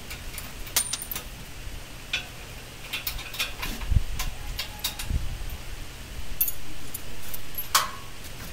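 Scattered metallic clicks and clinks of hand tools and steel parts on the frame and mould of a concrete block moulding machine being assembled, with two dull thumps about four and five seconds in.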